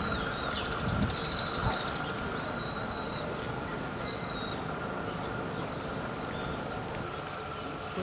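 Outdoor ambience: a steady high insect drone, with a few faint bird chirps in the first half and a couple of low thumps about a second in.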